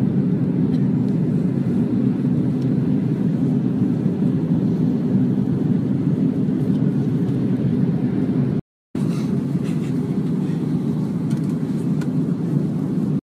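Steady, dull cabin noise of a jet airliner in flight, the engines and the airflow heard from a window seat. It cuts out briefly about nine seconds in and again just before the end.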